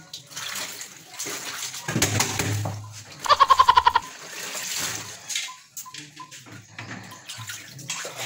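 Water sloshing and splashing as clothes are scrubbed and wrung by hand in a plastic washbasin. About three seconds in comes a short, loud, rapidly pulsing squeak.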